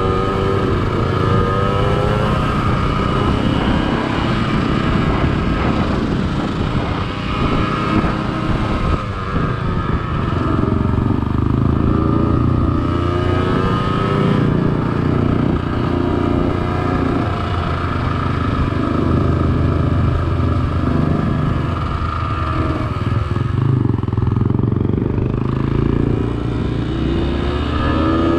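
Off-road motorcycle engine running while being ridden, its pitch rising and falling with the throttle.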